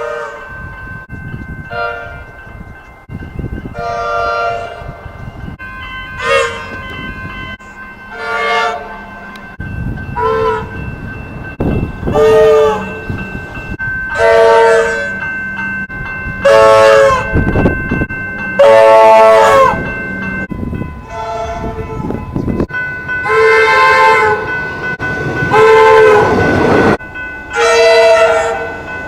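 Comeng electric train horns sounding in a rapid series of short blasts, about one every two seconds, several falling in pitch as they die away.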